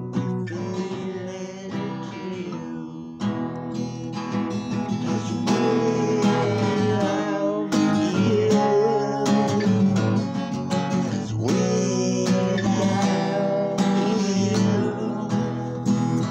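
Steel-string acoustic guitar strummed in chords, an instrumental stretch of a song; the strumming gets louder about five seconds in.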